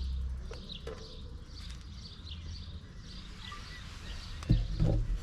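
Small birds chirping over a low, steady rumble, with a brief thump and a short low pitched sound about four and a half seconds in.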